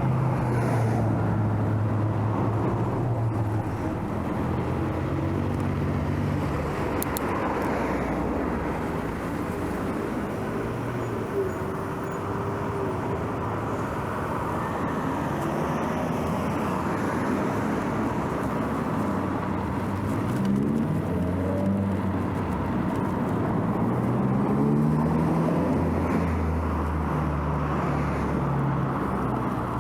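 Road traffic passing close by: a steady wash of car engines and tyre noise, with engines rising in pitch a couple of times as vehicles accelerate.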